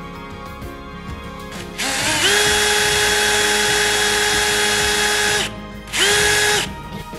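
Electric drill with a twist bit boring a position-marker dot hole in a wooden guitar fretboard. The motor spins up to a steady whine, runs for about three and a half seconds and stops, then gives a second short burst near the end.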